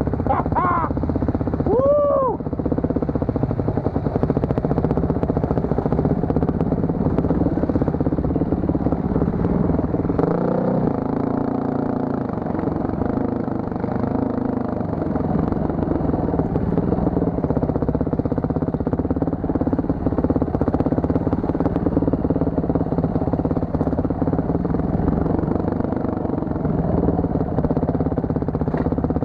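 Off-road dirt bike engine running under load on a trail, its revs rising and falling with the throttle, with a quick rev blip about two seconds in and a drop and pickup in revs around ten seconds in.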